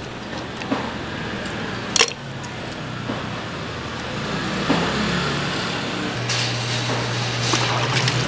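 Street traffic noise with a low motor drone that grows stronger for the last two seconds, and a single sharp knock about two seconds in.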